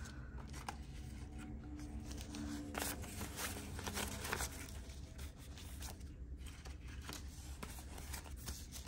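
US paper banknotes being counted by hand: bills flicked and slid off a stack one after another, giving irregular crisp paper rustles and snaps.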